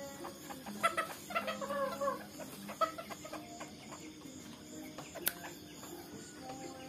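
Bantam chickens clucking with short calls, mostly in a cluster near the start, with a single sharp click about five seconds in.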